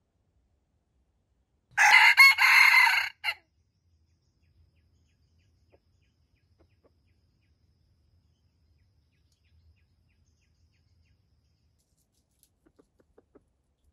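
Red junglefowl rooster crowing once, a short crow of about a second and a half ending in a clipped final note. A few faint ticks near the end.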